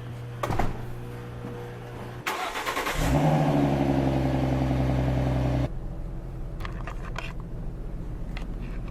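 Car engine cranked and started about two seconds in, then running loud and steady for a few seconds before dropping abruptly to a quieter steady hum.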